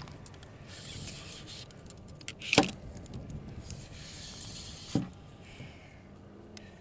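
Wire bore brush scrubbing inside a Mossberg 500 shotgun barrel, a rasping rub in a few strokes, to clear fouling where the barrel threads are. Two sharp knocks come, one near the middle and one about five seconds in.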